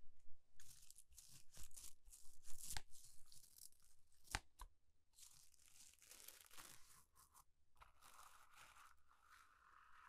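A black plastic handle end tapping and scraping directly on a clip-on microphone, giving sharp clicks and short scratches. From about halfway through, the stiff bristles of a toilet brush are rubbed over the mic in a dense, scratchy rustle.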